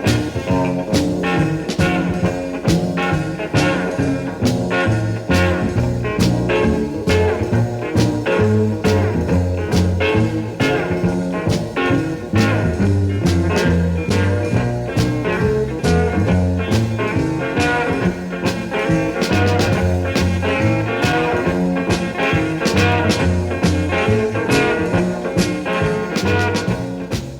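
Background music: an instrumental stretch of a blues-swing song with guitar, a walking bass line and a steady beat.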